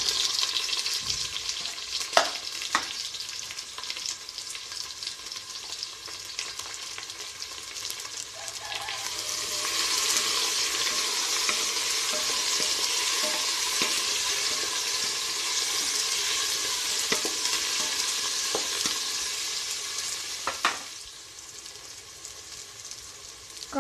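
Chopped vegetables sizzling as they fry in hot oil in a pressure cooker and are stirred. The sizzle grows louder about ten seconds in and dies down near the end, with a couple of sharp knocks about two seconds in.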